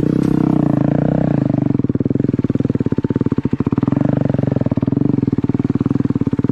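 Motorcycle engine running hard and steady, its note dipping and rising twice.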